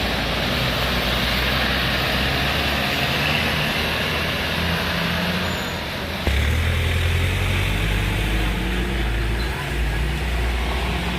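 Road traffic passing: motor vehicle engines and tyre noise. About six seconds in, a heavier, louder engine rumble sets in suddenly.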